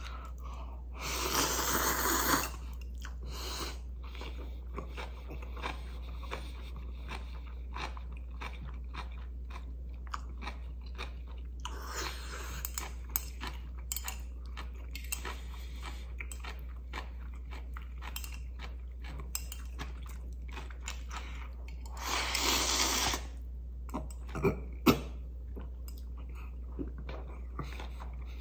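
A person eating Shin Ramyun instant noodles with chopsticks: a long noodle slurp about a second in and another about 22 seconds in, with steady chewing and small clicks between them. Two sharper clicks come a couple of seconds after the second slurp.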